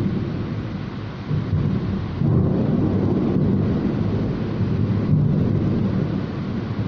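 Heavy rainstorm: a steady rush of rain under a long, low rumble of thunder that swells about two seconds in and eases off near the end.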